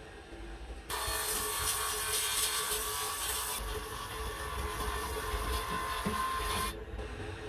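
Electric pillar drill press running with a steady hum and a rough rubbing, scraping noise over it. The sound is much quieter for about the first second and drops away briefly again near the end.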